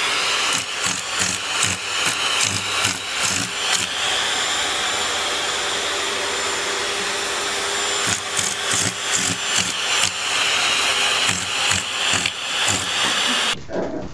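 A steady, loud motor whir with a high whine, like a vacuum cleaner running, with irregular knocks and rattles through much of it; it cuts off suddenly near the end.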